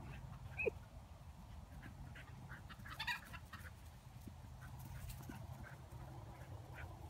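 Chickens clucking: short, scattered calls, with one louder sharp call under a second in and a brief cluster of calls about three seconds in, over a steady low background rumble.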